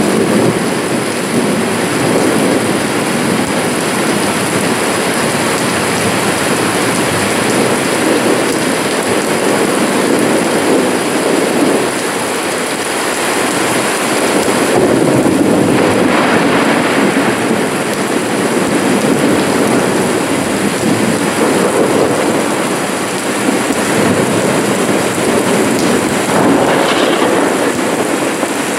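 Steady rain falling on a grass lawn and wet ground, a dense, even rush of drops.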